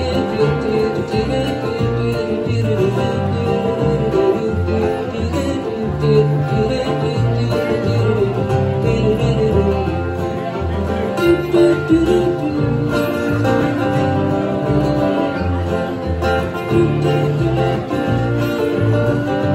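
Live acoustic string band playing a lively country tune: two acoustic guitars strumming over an upright bass plucking a moving low line.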